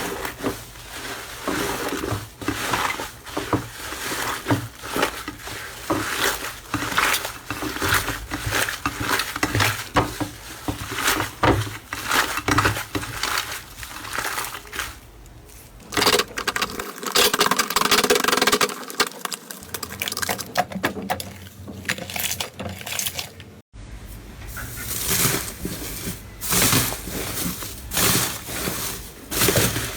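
Slime being squeezed and poked by hand: dense, irregular crackling and popping clicks, with a brief sudden drop-out about three-quarters of the way through.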